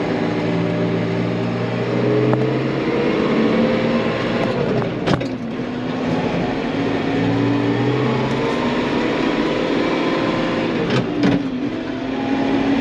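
Tractor engine of about 95 horsepower running steadily under heavy load while pulling a full slurry tanker. Twice, about five seconds in and again near the end, the engine note drops with a sharp click and then climbs back up.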